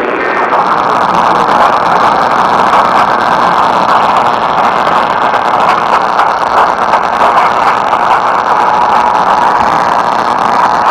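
Loud, steady radio static hiss with no speech or alert tones, heard through a broadcast receiver after an Emergency Alert System test ends. A faint steady tone shows in the static from about eight seconds in.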